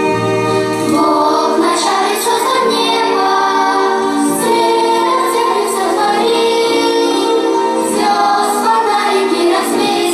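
Children singing a song with keyboard accompaniment.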